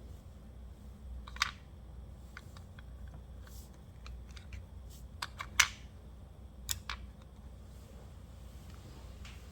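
Scattered light clicks and taps of small parts being handled, with a few sharper clicks about a second and a half in and again between five and seven seconds in, over a steady low hum.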